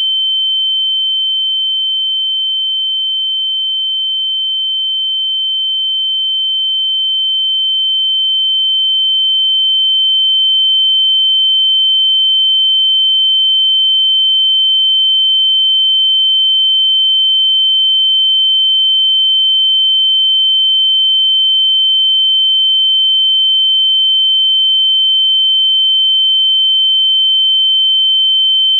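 Ear-ringing (tinnitus) sound effect: a single steady, high-pitched pure tone held without a break, the ringing heard after being hit or knocked out. It sags slightly in loudness early on and swells a little about ten seconds in, then holds steady.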